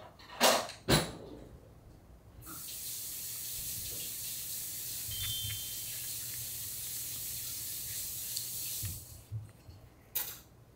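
Water running from a tap into a sink for about six seconds, starting about two seconds in, after two knocks. A single click near the end.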